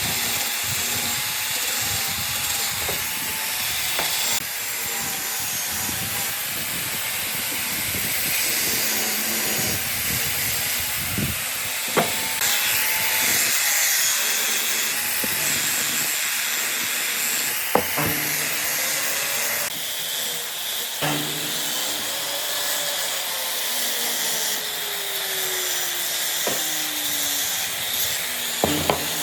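Power tools working wood: a steady, hissing run that changes character abruptly every several seconds, with a few sharp knocks and a slowly falling whine near the end.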